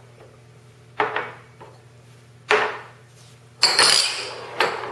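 Spice containers set down on a kitchen counter: four separate knocks, the third a longer clatter with a bright ringing clink.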